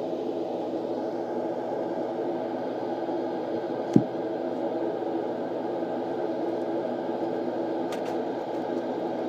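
Steady whirring background hum, with one sharp knock about four seconds in and a fainter click near the end.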